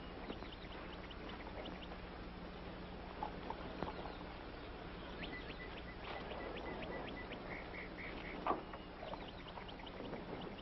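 Faint hum and hiss of an old TV soundtrack, with scattered crackling clicks. Two short runs of rapid, high-pitched chirps come in the second half, and a sharp click comes near the end.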